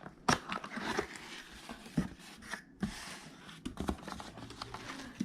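Parts packaging being handled and opened, with crinkling and tearing and a run of sharp clicks and knocks.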